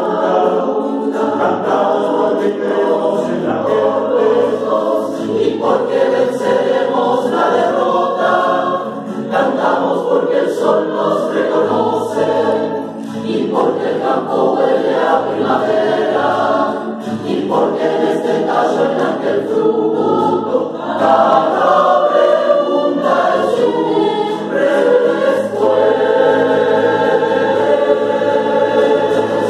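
Mixed choir of men and women singing in Spanish, full and continuous, with brief softer moments about a third and halfway through.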